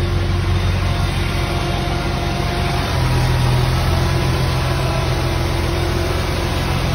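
Diesel engine of a crane truck idling steadily as a low, even drone; a deeper hum in it grows a little louder about three seconds in.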